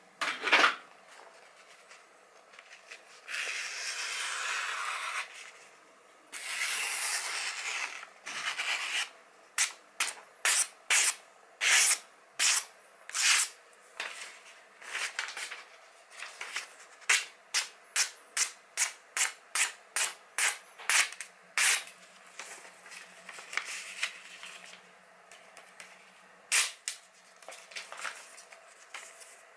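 A freshly sharpened Cutco kitchen knife slicing through magazine paper in a sharpness test. There are two long drawn cuts, then a run of about twenty quick short cuts at roughly two a second, and a few more near the end. A sharp knock comes about half a second in.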